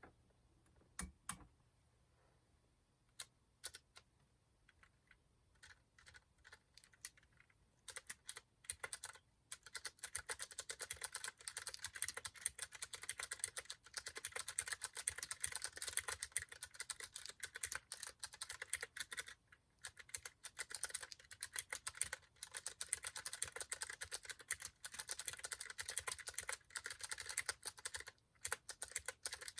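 Typing on a Mistel 60% split mechanical keyboard with clicky Cherry MX Blue switches: a few separate keystrokes at first, then fast continuous typing from about eight seconds in, with a couple of brief pauses.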